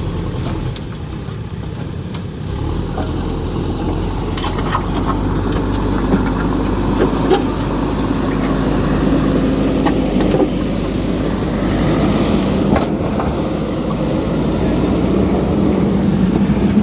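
JCB backhoe loader's diesel engine running steadily while working, growing a little louder a few seconds in, with a few short sharp knocks.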